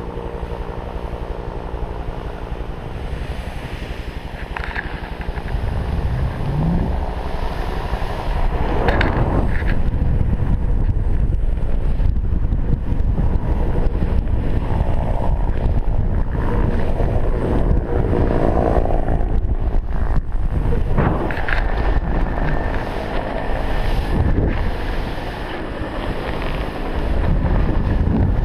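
Wind buffeting the camera microphone and the rushing hiss of a snowboard riding through dry powder, louder from about five seconds in. A faint steady hum, fitting the helicopter that dropped the rider off, fades out in the first few seconds.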